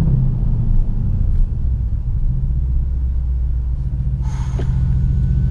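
Mercedes-AMG C63 S's 4.0-litre twin-turbo V8, fitted with downpipes and a tune, heard from inside the cabin while driving: a steady deep drone, stupid loud even with the exhaust valves closed.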